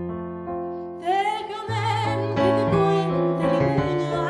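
A keyboard piano's held chord fades out. About a second in, a woman begins singing over the piano accompaniment.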